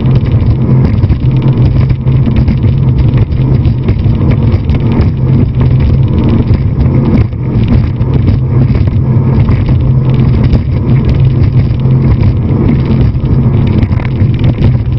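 Motorboat running flat out: a steady, loud engine drone mixed with rushing wind and water noise.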